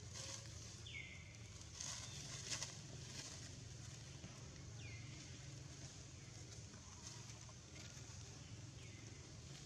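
Dry leaves crackling and rustling as baby long-tailed macaques move about, loudest about two seconds in. Three short high calls that slide downward in pitch come about four seconds apart.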